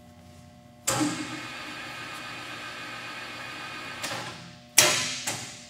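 Microweily TY-1340GHE metal lathe starting about a second in and running with a steady whir for about three seconds, then stopping. Near the end there is a loud clunk with a second, smaller one just after, from the machine's controls being worked.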